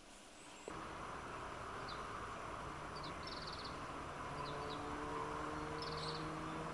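A small finch calling in short groups of high chirps and quick trilled notes, which the birder tentatively takes for a Eurasian siskin, over a steady low hum.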